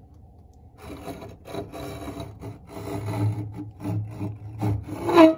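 A combination square scraping and rubbing against a fibreglass locker wall in uneven strokes starting about a second in, ending in a louder, sharper squeak near the end.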